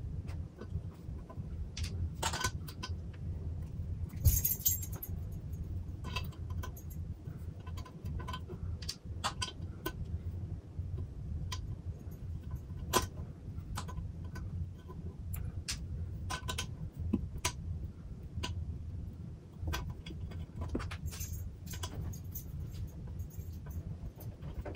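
Small metal tool clicking and scraping against the aluminium stand hinge of an Apple LED Cinema Display, in many short, irregular clinks, with a brief louder rattle about four seconds in. A steady low hum runs underneath.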